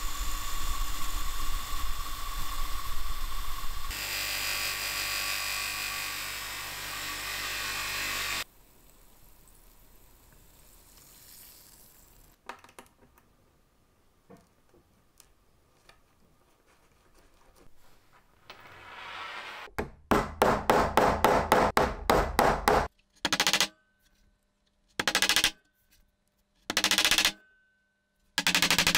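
A cordless drill spins a steel pin against a bench grinder wheel, a steady grinding whine that grows louder about four seconds in. It stops suddenly, and after a quiet spell of light handling comes a fast run of sharp knocks, then four short separate bursts.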